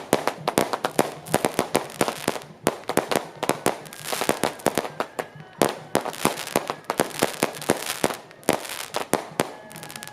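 Strings of firecrackers going off in rapid, irregular bangs, several a second, without a break.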